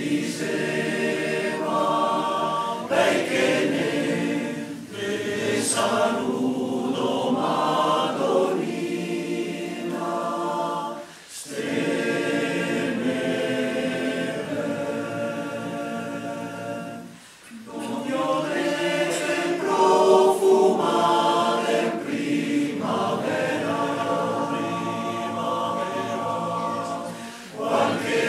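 Male choir singing a cappella in several parts, in long sustained phrases broken by short pauses for breath about 11 and 17 seconds in and again near the end.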